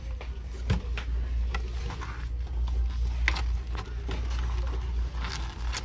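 Scattered light clicks and knocks over a steady low hum.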